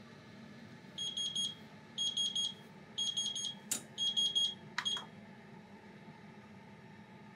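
Digital kitchen timer's alarm beeping, groups of about four quick high beeps once a second, to signal that the countdown is up. It stops abruptly with a click near 5 seconds.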